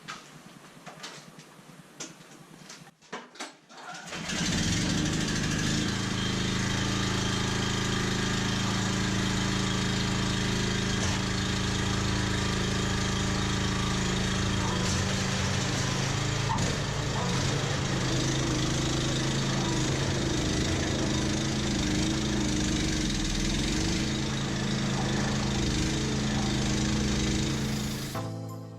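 Honda HSS1332 snowblower's single-cylinder gas engine starts up about four seconds in after a few clicks, then runs loudly and steadily while clearing snow, its pitch wavering a little in the middle. The sound cuts off just before the end.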